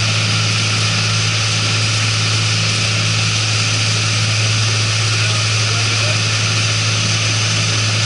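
A rigid-hull inflatable rescue boat under way at steady speed: the engine's constant drone under a steady rush of wind and water from the hull's wake.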